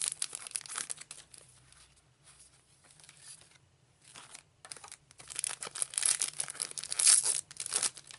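Foil trading-card booster packs being torn open and crinkled by hand, in two spells: one in the first second or so and a louder one from about five seconds in.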